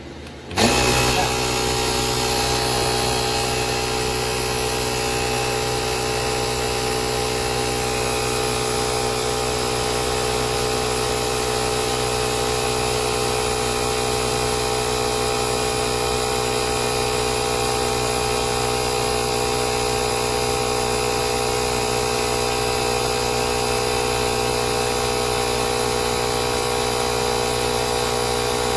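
Fanttik X8 Apex cordless tire inflator's compressor starting up about half a second in and running steadily, inflating a motorcycle's front tire from 26 toward a set 36 PSI.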